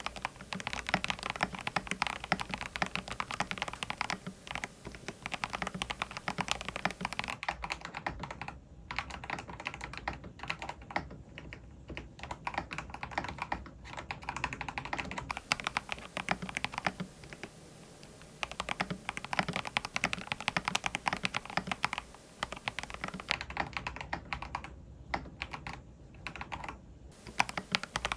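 Typing on a Monstargear Ninja 108 PRO mechanical keyboard with lubricated switches: a fast, continuous patter of keystrokes that thins out twice into slower, lighter stretches.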